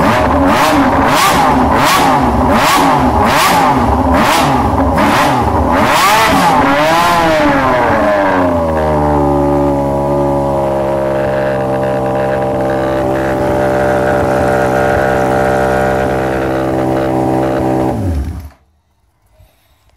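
1981 Honda CBX1000's air-cooled inline-six engine blipped hard through an aftermarket exhaust: about ten quick revs, each rising and falling, then one longer rev that settles to a steady idle about nine seconds in. Near the end the engine is switched off and cuts out abruptly.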